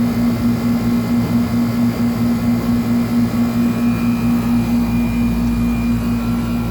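The Copeland compressor and condenser fan of a 1995 Tempstar 5000 central air conditioner's outdoor unit running steadily: a loud, steady hum over a low rumble, which the owner calls a roaring Copeland.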